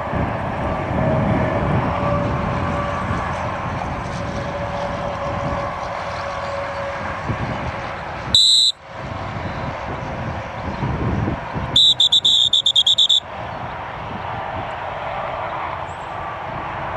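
Dog-training whistle: one short, sharp blast a little past the middle, then a quick run of about nine short toots a few seconds later. In retriever handling these are the single-blast stop/sit whistle and the multiple-toot come-in whistle. Steady wind and field noise lies underneath.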